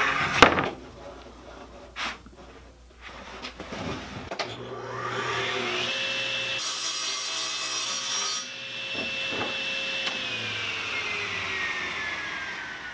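Table saw motor starting about four seconds in and whining up to speed, then cutting a sheet of 3/4-inch plywood in half. It is switched off about ten seconds in and winds down with a falling whine. Before the saw starts there are a few knocks of the plywood being handled.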